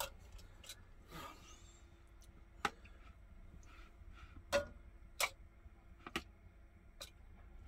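About half a dozen light, scattered clicks and taps of metal kitchen utensils: a metal potato ricer and a spoon knocking against the pot and a plastic bowl while boiled potatoes are loaded into the ricer.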